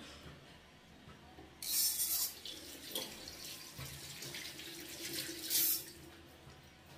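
Water hissing. A sudden loud rush comes about one and a half seconds in, settles to a quieter flow, and ends with a second short rush near the six-second mark.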